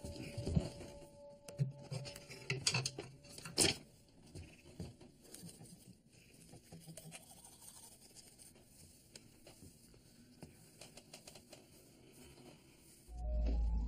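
Close handling sounds of small objects: clicks, taps and scratches, busiest in the first four seconds with one sharp click about three and a half seconds in, then faint scattered ticks and rustles. Music comes in near the end.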